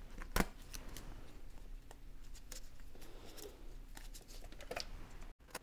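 Hands sticking numbered labels onto spark plug wires: soft rustling and scattered small clicks, with one sharper click about half a second in.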